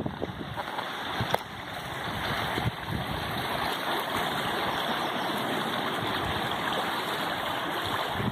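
Shallow stream running over stones: a steady rushing babble that swells about a second and a half in and then holds even.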